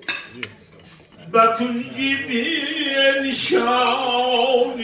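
A man's voice chanting from a book into a microphone in long held, slowly wavering notes, starting about a second in. A few cutlery clinks at the start.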